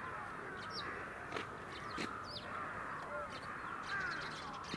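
A large flock of birds calling over one another in a steady, dense chorus, with a few higher, sharper calls and several brief clicks.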